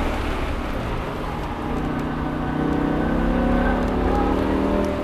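BMW M5's V10 engine heard from inside the cabin, pulling through a track corner, its note rising steadily from about a second and a half in.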